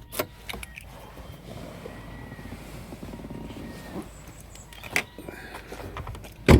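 Faint clicks and handling noise around a car, then one loud thump near the end: a car door being shut.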